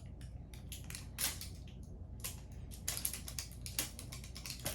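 Small hard plastic toy pieces being handled: an irregular run of clicks, taps and rustles, growing busier about three seconds in.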